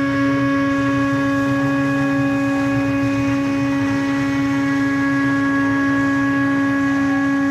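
Spindle of an Acctek 6060 metal CNC router running at speed as the end mill cuts aluminium, a loud, steady, high-pitched whine over a rougher grinding noise of the cut.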